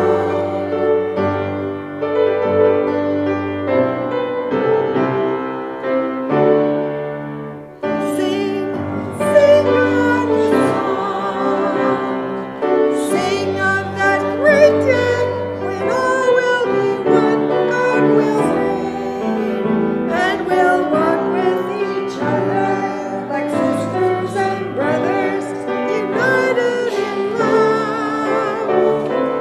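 A hymn anthem with keyboard accompaniment. For the first eight seconds or so only held keyboard chords sound; then a woman's voice with vibrato comes in, singing the melody over the accompaniment.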